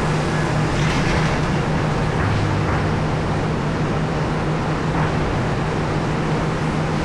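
Heavy mining machinery running, with a steady low engine drone over a broad rumble of working noise.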